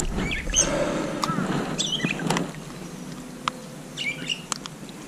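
Small birds chirping, with sharp clicks and rustling from hands handling a caught bass and its frog lure on a plastic kayak deck. The handling noise is louder in the first half and then dies down.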